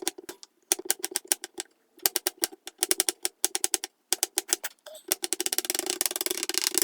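Chef's knife rapidly chopping garlic cloves on a cutting board: fast runs of sharp knocks, several strokes a second, broken by short pauses, with the last run quicker and denser.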